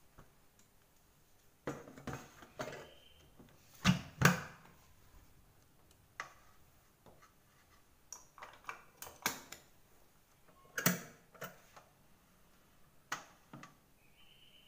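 Kitchen clatter as a metal cooking pot and utensils are handled and set down: a string of separate knocks and clinks, the two loudest about four seconds in.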